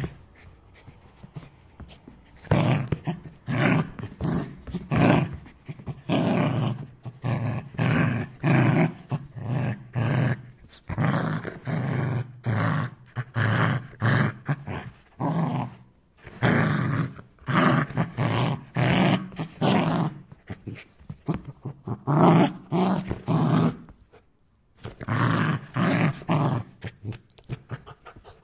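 An angry dog barking hard in runs of rapid, loud barks, separated by short pauses.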